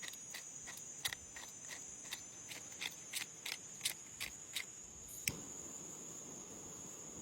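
A run of light clicks, about three a second, stopping about four and a half seconds in, followed by one sharper click a little later. A steady high-pitched whine sounds throughout.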